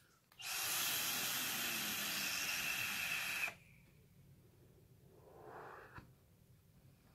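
Drag on a freshly wicked and dripped SXK Narca rebuildable dripping atomizer: a steady hiss of air pulled through the firing coil for about three seconds, then near the end a brief, fainter exhale and a small click.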